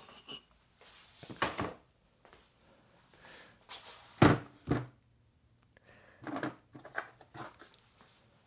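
Scattered knocks and clicks of small motorcycle parts being handled and set down on a hard surface, the loudest a sharp knock a little past four seconds in, followed by a quick run of light clicks near the end.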